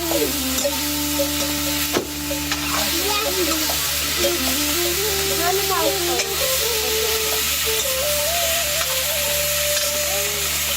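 Food sizzling as it fries in a pan, with stirring and a couple of sharp knocks of a utensil. A melody of slow stepping notes runs underneath.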